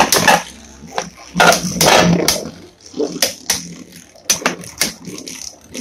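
Two Hasbro Beyblade Burst spinning tops, Venom Diabolos and Wizard Fafnir, clashing in a plastic stadium. Their collisions make sharp clicks and clacks, with a dense run of hits about a second and a half in.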